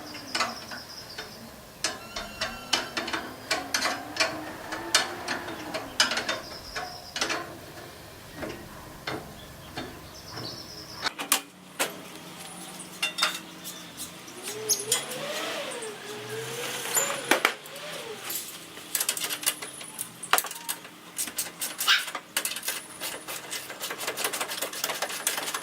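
Repeated metallic clicks and clinks of hand tools and loose bolts, from work taking apart a golf cart's rear seat.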